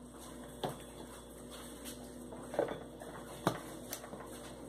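A few light knocks and clinks, about three, from a glass blender jar as a hand pushes boiled green tomatoes and chiles down inside it.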